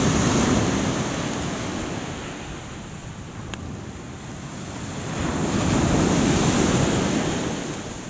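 Sea waves washing onto the shore, swelling twice: near the start and again about five seconds in. A single sharp click about halfway through.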